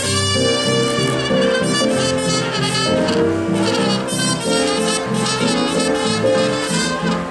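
Jazz-style brass music: horns play a moving melody over a walking bass line.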